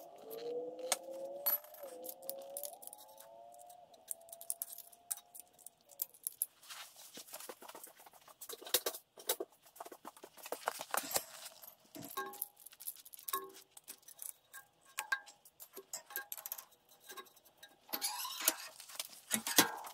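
Hand tools on bolts: a socket wrench clicking and metal parts clinking in quick, irregular taps, with a cordless drill/driver running near the end. A faint rising whine sounds during the first few seconds.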